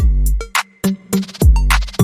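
Electronic background music with a drum-machine beat: deep booming bass kicks, sharp snare and hi-hat hits and a held synth note.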